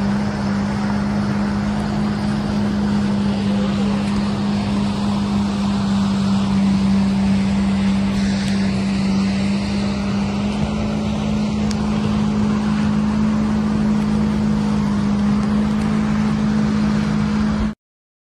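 Jet ski engine running at a steady speed, with a strong constant drone and the rush of water and wind over it. It cuts off abruptly near the end.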